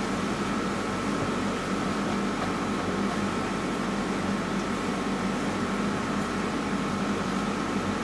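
Steady background hum and hiss with a thin, high steady tone, even throughout and with no separate sounds standing out.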